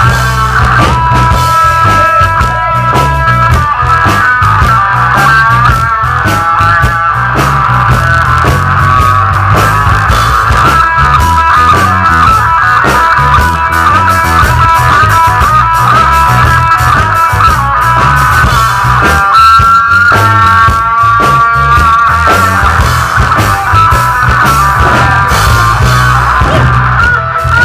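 A live rock band playing loud, with electric guitar lines over bass guitar and drums.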